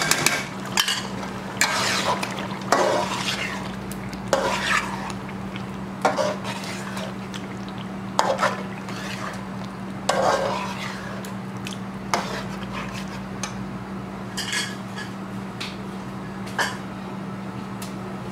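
Spatula stirring chicken and yogurt in a cooking pot, with irregular scrapes and clinks against the pot. A steady low hum runs underneath.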